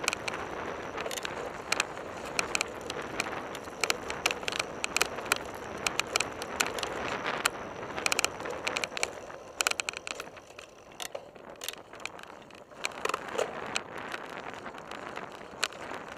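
Mountain bike rattling over a rough dirt trail, heard through a camera mounted on the bike: a dense run of clicks and knocks from the bike's parts over tyre and wind noise, easing off for a couple of seconds past the middle.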